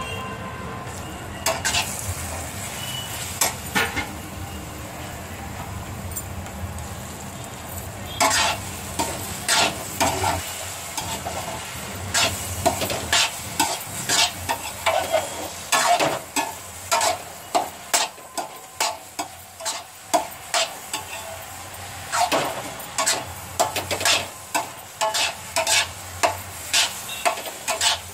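Metal spatula stirring beetroot in a kadai, scraping and knocking against the pan over a steady sizzle of frying. The spatula strokes come only now and then at first, then repeatedly, about one to two a second, from about a third of the way in.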